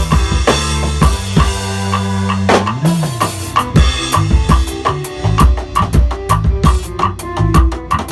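Band music with a drum kit playing a steady beat under a held bass line and sustained keyboard tones; a bass note slides up and back down about three seconds in.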